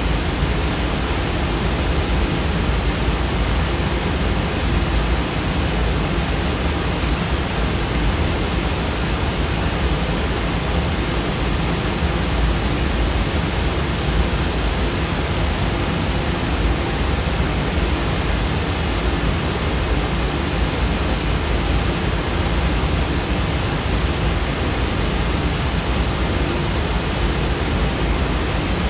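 Steady, unchanging noise sound effect: an even hiss across the whole range with more weight in the low end, with no events or changes.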